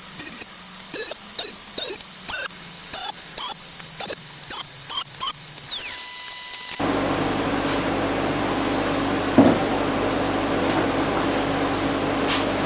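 Power tool motor running with a high steady whine, then switched off about six seconds in, its pitch falling as it winds down. It is followed by a different machine running steadily, a broad noise with a low hum, with one sharp knock partway through.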